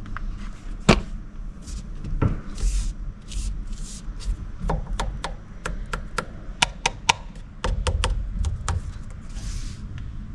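Hands working on parts in a car's cockpit: a string of sharp clicks and knocks, most of them packed close together in the second half, with a few short rustling rubs in between.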